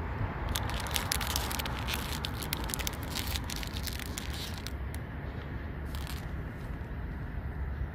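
A plastic snack-bar wrapper crinkled in a hand: a rapid run of crackles that stops a little before five seconds in, over a low wind rumble on the microphone.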